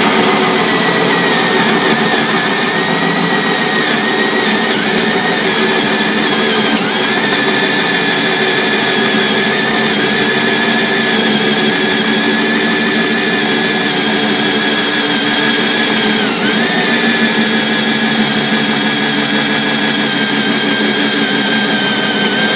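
Power drill driving a hole saw through a wooden 2x4, the motor whining steadily under load. The pitch sags briefly twice, about 7 and 16 seconds in, as the saw bites harder.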